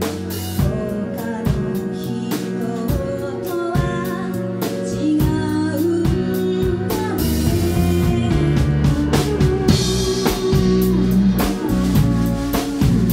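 Live band playing a song: a drum kit keeps a steady beat under electric bass and electric guitar, and the band grows a little louder about halfway through.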